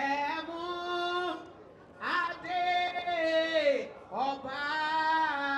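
A woman singing into a microphone in three long, held phrases, each note sustained with a slight waver.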